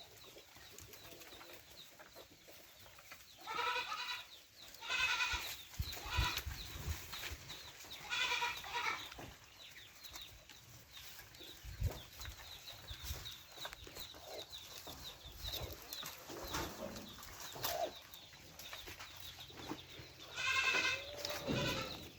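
Goats bleating: a handful of wavering calls at irregular intervals, the longest near the end.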